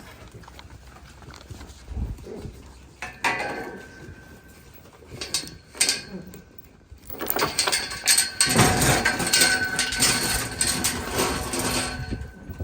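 Metal pen gates clanking and rattling while cattle are moved into a pen. Scattered knocks come first, then a dense, loud clatter from about seven seconds in until near the end.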